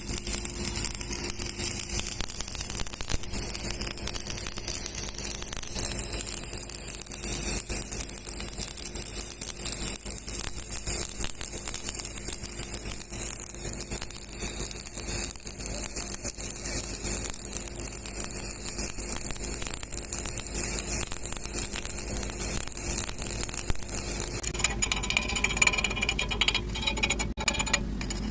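Shielded metal arc (stick) welding with an E6013 rod on galvanised iron pipe: the arc gives a steady crackling hiss. About three-quarters of the way through the hiss stops and the sound changes.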